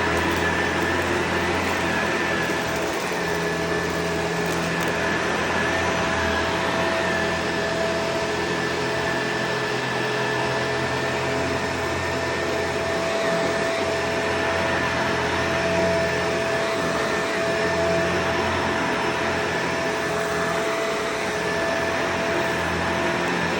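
Vacuum cleaner running steadily, an unbroken motor whine and airflow noise.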